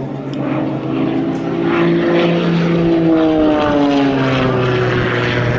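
Extra 330 aerobatic plane's piston engine and propeller running at high power. The note rises over the first two seconds or so, then falls steadily through the rest.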